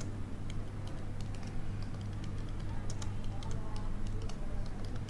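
Computer keyboard being typed on: a run of quick, irregular key clicks over a steady low hum.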